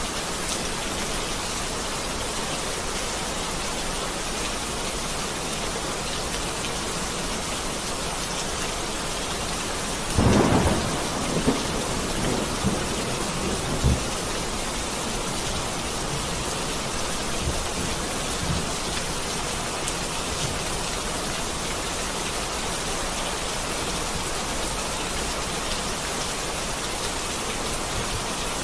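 Steady rain falling as an even hiss. About ten seconds in, a sudden thunderclap breaks through, followed by a few deep rumbles over the next four seconds.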